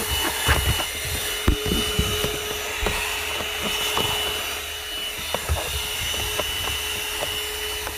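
AGARO CV1077 handheld car vacuum cleaner running with a steady whine. Its clear plastic nozzle scrapes and knocks against the plastic cup holders of the centre console, giving a scattering of short, sharp knocks.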